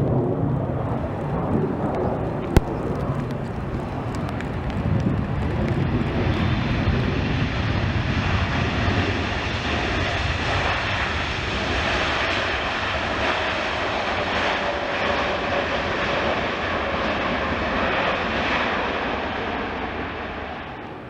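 Airliner's engines running as it goes by: a low rumble first, then a louder, higher roar that builds from about six seconds in and fades near the end. A single sharp click about two and a half seconds in.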